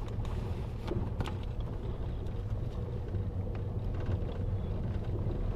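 Volkswagen Passat driving over a rough unpaved dirt road, heard inside the cabin: a steady low rumble of tyres and engine, with a few sharp knocks in the first second or so.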